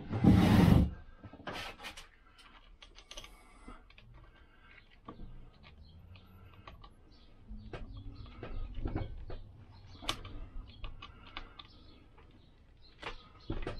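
Small metal clicks and taps as a wrist pin is pushed by hand with a socket into a Lambretta 186-kit piston and small end. There is a brief loud scuffing rush at the very start. The pin is a tight fit and won't go home.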